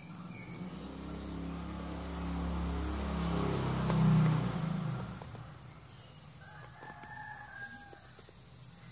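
An engine passes by, swelling to its loudest about four seconds in and then fading away. A little later a rooster crows once, faintly, for about a second and a half.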